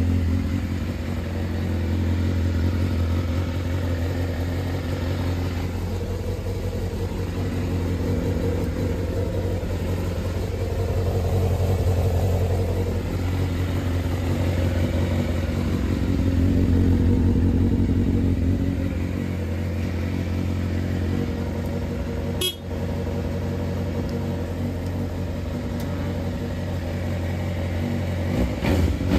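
Suzuki GSX-R 750 inline-four engine running at idle, steady with a couple of slight swells. It is running on a newly fitted replacement wire harness, a sign that the harness works.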